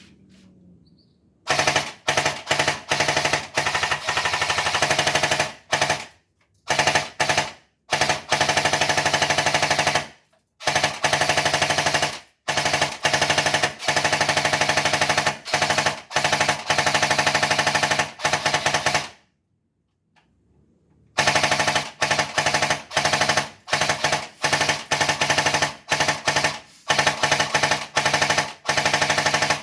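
Airsoft MG42 replica firing on full auto in a series of bursts of varying length, with short pauses between them and one longer pause about two-thirds of the way through.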